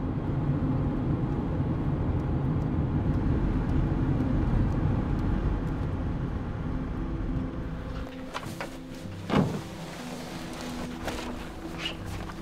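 Steady engine and road rumble heard from inside a moving vehicle's cab. It drops away about eight seconds in, giving way to scattered knocks and clatter of gear being handled, with one louder thump about a second and a half later.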